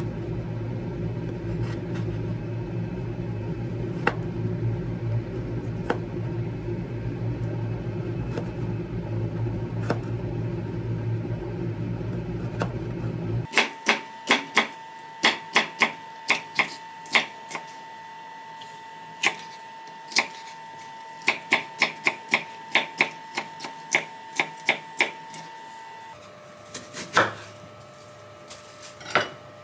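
A steady low hum with a few light knife taps on a small plastic cutting board as a tomato is sliced. About halfway through the hum stops, and a chef's knife chops green peppers on a bamboo cutting board: sharp knocks in quick runs of several strokes, with short pauses between runs.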